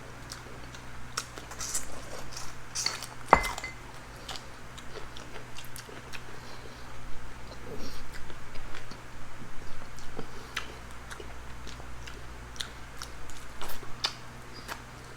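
Eating sounds: cutlery clinking and scraping against plates and soup bowls, with scattered small clicks and some chewing. There is one sharp, ringing clink a little over three seconds in.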